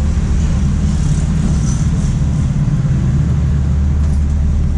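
Street traffic: a steady low rumble of vehicle engines running on the road close by.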